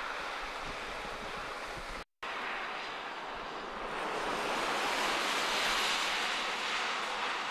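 Steady wind noise rushing across the microphone in a heavy snowstorm, broken by a brief dropout about two seconds in, then swelling louder and brighter around the middle before easing slightly.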